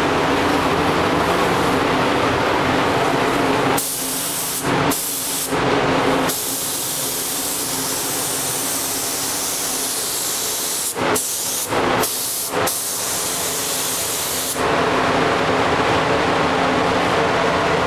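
SATA gravity-feed spray gun hissing as paint is sprayed, starting about four seconds in, stopping briefly several times as the trigger is released, and ending near the end. Under it runs a steady drone with a low hum, typical of the paint booth's ventilation fans.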